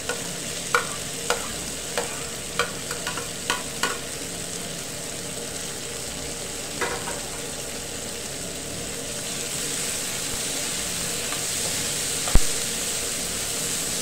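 Frying pan sizzling steadily with fried omena and onions as chopped tomatoes are added, with a run of light knocks in the first four seconds as the tomatoes are tipped in from a bowl. The sizzle grows a little louder about halfway through, a single sharp knock comes near the end, and the mix is stirred.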